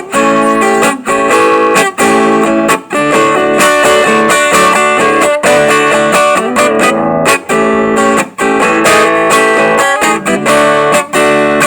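Acoustic guitar (violão) being played: strummed and picked chords ringing out, changing every second or so.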